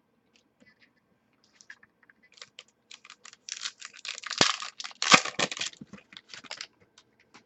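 A pack of trading cards being opened and handled: a run of crinkling, tearing and clicking rustles, loudest about four and five seconds in.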